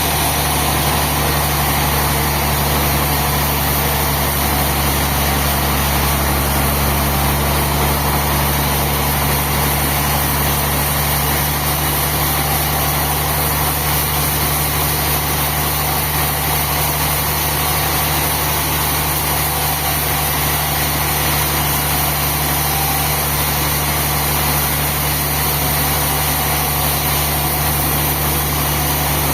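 Sawmill machinery running steadily: an engine with a low, unchanging hum and no breaks or changes in load.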